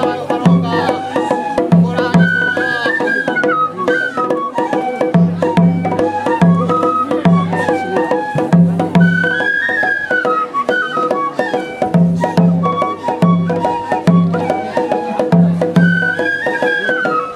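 Japanese festival ohayashi music: several transverse flutes playing a gliding melody over a taiko drum beating a steady, repeating rhythm, with sharp clicking percussion strokes.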